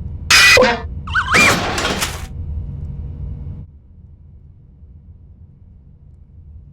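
Cartoon slapstick crash sound effects: two loud smashes with breaking and shattering in the first two seconds, a short warbling whistle between them, then a low rumble that dies away at about three and a half seconds.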